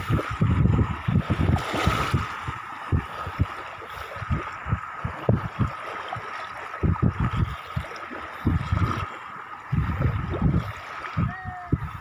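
Small sea waves lapping and washing onto a sandy shore, with wind buffeting the microphone in irregular low thumps.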